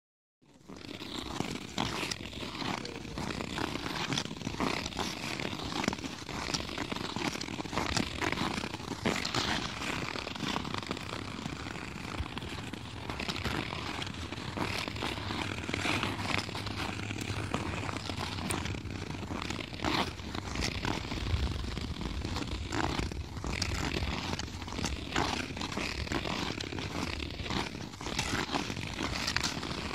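Ice skates scraping and gliding over snow-covered natural ice: a continuous rough rasp broken by many short scratches.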